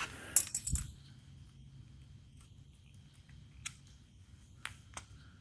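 A quick clatter of sharp metallic clicks and a low knock, plausibly from working the old bandsaw's faulty power switch, followed by a few faint ticks.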